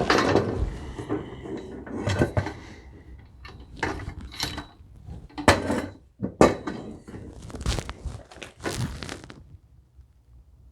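Metal saw-stand parts and hardware being handled and set down during assembly: a string of knocks and clanks that stops near the end.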